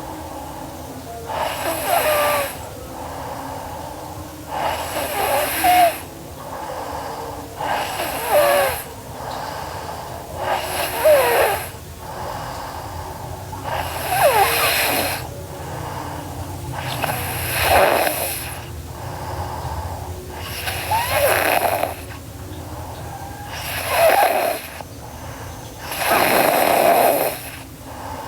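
A girl snoring in her sleep: about nine snores, roughly one every three seconds, each with a wavering, rattly pitch.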